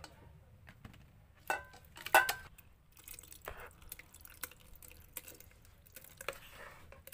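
A metal spoon scraping and knocking against a basin as wet passion fruit pulp and seeds are scooped into a blender jug. Two sharp knocks come about a second and a half and two seconds in, the second the loudest, then softer clicks, scrapes and wet slops.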